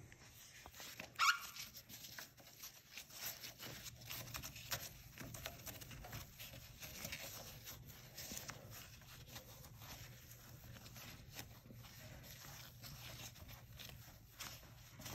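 Faint rubbing and rustling of an isopropyl alcohol prep wipe being wiped over a motorcycle's painted rear fender, over a steady low hum. One brief louder sound comes about a second in.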